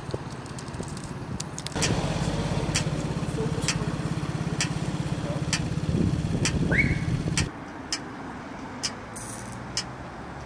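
A motor vehicle's engine runs close by, loud for about five seconds and then cutting off sharply, over a steady rumble of traffic. Sharp ticks repeat about once a second, and a short rising squeal comes near the end of the loud part.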